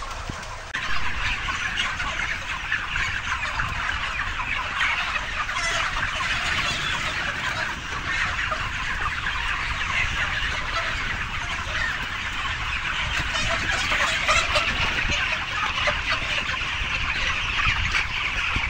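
A large flock of broiler chickens, about five weeks old, clucking and chattering together in a broiler house: a dense, steady mass of overlapping calls.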